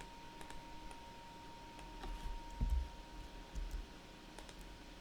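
Scattered light clicks of a computer mouse and keyboard, with two dull low thumps a little under three and about three and a half seconds in. A faint steady tone stops about three seconds in.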